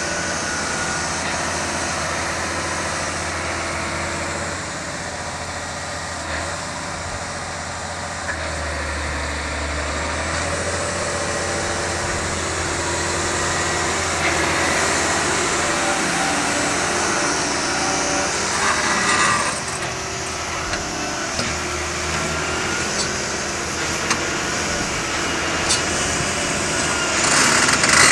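Case IH Quadtrac 600 tracked tractor's diesel engine running steadily under load as the tractor drags a box leveller through loose soil. A brief louder burst of noise comes about two-thirds of the way in and again near the end.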